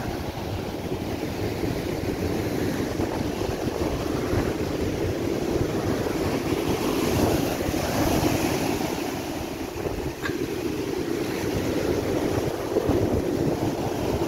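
Rough storm waves breaking and washing up a shingle beach, with wind buffeting the microphone. The surf swells louder about halfway through and again near the end.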